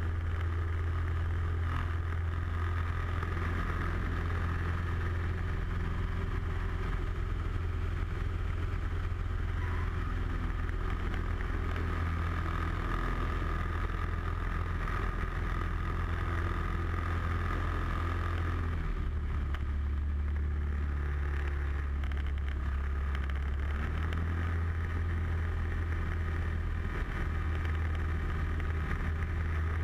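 Single piston engine and propeller of a light aerobatic airplane droning steadily, heard from inside the cockpit. The engine note drops lower about two-thirds of the way through and comes back up a few seconds later.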